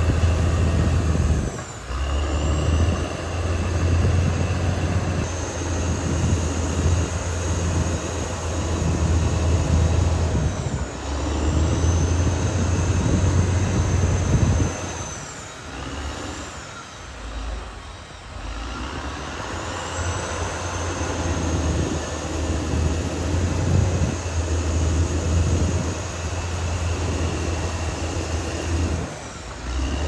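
Caterpillar D6R XL bulldozer's diesel engine running under load, with high metallic squeals coming and going. The engine drops off for a few seconds about halfway through, then builds again.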